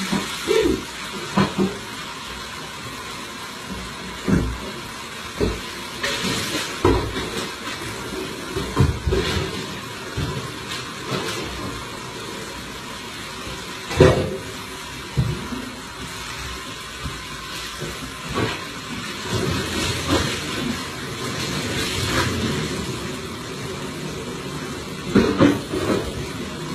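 A steady rush like water running from a kitchen tap, broken by scattered knocks and clatter as kitchen items and cabinet parts are handled. The strongest knock comes about halfway through.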